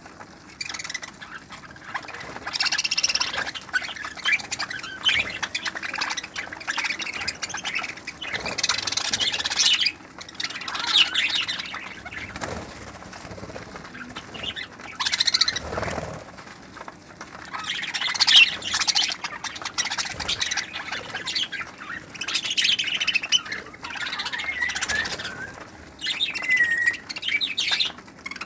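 A flock of budgerigars chattering, with overlapping chirps and squawks that come in bursts every few seconds.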